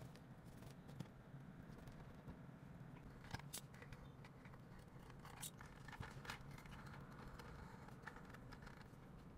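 Faint scratching and scattered sharp clicks of a thin metal pick scraping residue off the bare back of an iPhone 12 Pro Max frame. Most of the clicks fall in the middle of the stretch.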